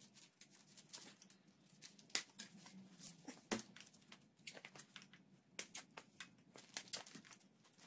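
Tire levers prying a minivelo's tire bead off the wheel rim, a bit at a time: faint, scattered clicks and short scrapes of lever, rubber and rim.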